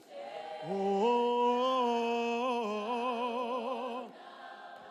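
A single voice sings a Bemba worship song unaccompanied. It slides up into a long held note with vibrato, then drops away about four seconds in to quieter singing.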